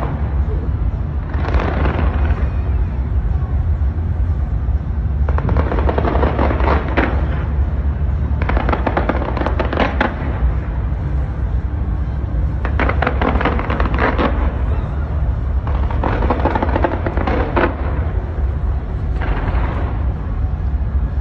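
Fireworks show: clusters of rapid crackling and popping that come every few seconds, each lasting a second or two, over a steady deep rumble.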